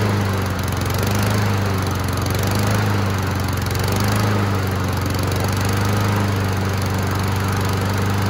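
Honda GCV190 single-cylinder engine on a Honda HRX217 walk-behind lawn mower running at a steady speed.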